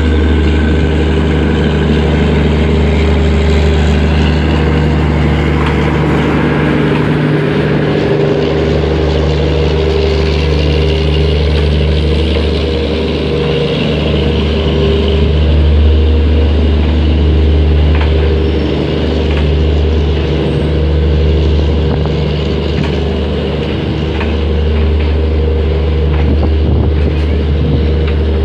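Diesel locomotive engine running steadily close by, a loud deep drone with a low hum that dips briefly a few times, as it hauls a train of passenger coaches slowly through the yard; a few faint clicks from the wheels and couplings.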